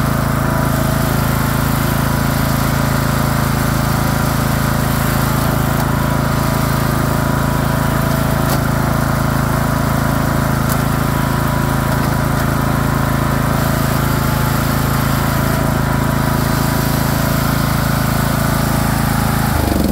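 Craftsman LT3000 lawn tractor engine running steadily at a constant speed, with a steady low hum, its pitch starting to fall at the very end.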